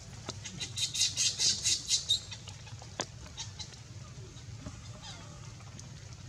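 Baby monkey screaming in a rapid run of about seven shrill, high-pitched squeals lasting about a second and a half, followed by a single sharp click about three seconds in.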